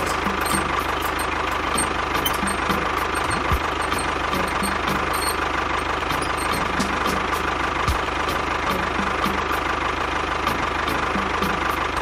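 A small motor running steadily, with a constant whine over a low drone.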